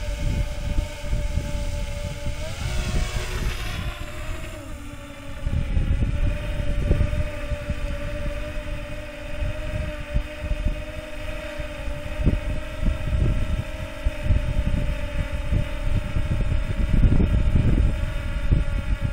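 DJI Phantom 3 Professional quadcopter's propellers running with a steady whine; the pitch rises about three seconds in as the drone climbs, then settles. Wind buffets the microphone underneath with a gusty low rumble.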